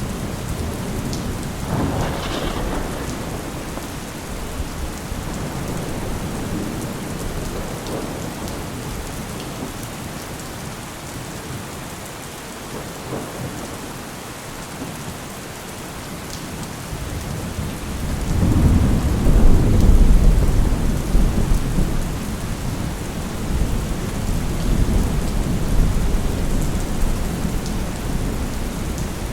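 Steady heavy rain with thunder: a sharp crack about two seconds in, then a long low rumble rolling in about two-thirds of the way through, loudest a couple of seconds later and slowly dying away.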